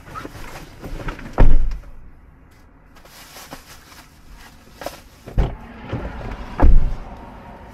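Music gear being loaded into the back of an SUV: knocks and clicks, with three loud thuds about a second and a half in, near five and a half seconds and near six and a half seconds, the last the loudest.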